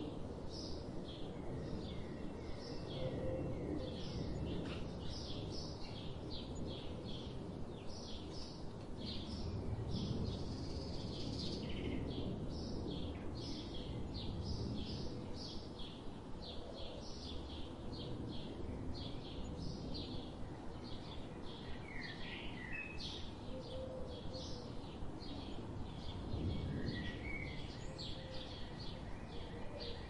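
Songbirds chirping and calling continuously: many short, high notes several a second, with a few lower chirping phrases late on, over a steady low outdoor background hum.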